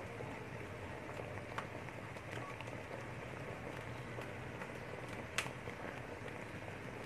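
Thick sweet mixture (doce) boiling in a pot: a steady bubbling hiss with a few sharp pops as larger bubbles burst, the loudest about five seconds in.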